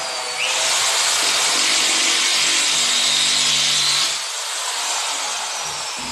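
Corded electric drill spinning up about half a second in and drilling under load for about three and a half seconds, then released, its motor winding down with a slowly falling whine.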